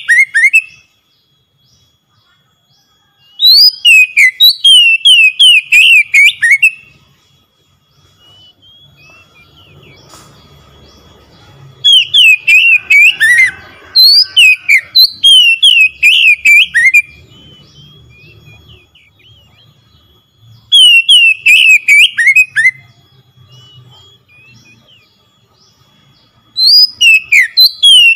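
Oriental magpie-robin singing in loud bursts of rapid, downward-slurred whistled notes. There are about five bursts, each lasting one to five seconds, with quieter pauses between them.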